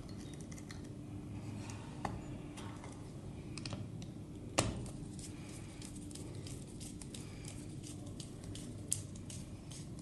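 Screwdriver turning and tightening screws in a plastic terminal connection box: faint scattered clicks and scrapes, with a sharper click about four and a half seconds in.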